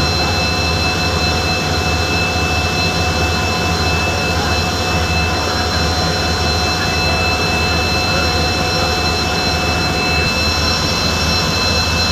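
Railway locomotive running at a standstill: a steady, even drone with a low hum and several high, steady whines over it.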